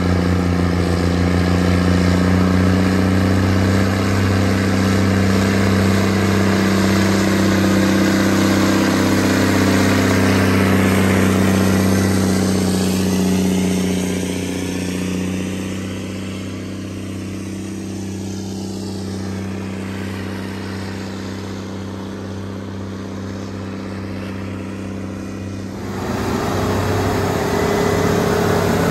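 Tractor diesel engine running steadily. It grows fainter about halfway through and changes suddenly near the end to a louder engine with a slightly different pitch.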